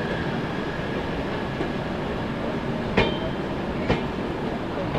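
Indian passenger train running along the track, heard from aboard: a steady rumble with two sharp clacks about three and four seconds in.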